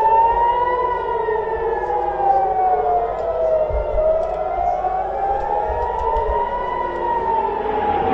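Civil defence air-raid sirens, more than one overlapping, wailing with their pitch slowly rising and falling: the alert warning of incoming missiles.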